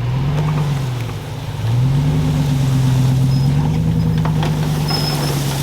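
Vehicle engine pulling under load: its pitch rises and falls, dips about a second in, then climbs again and holds steady at a higher note.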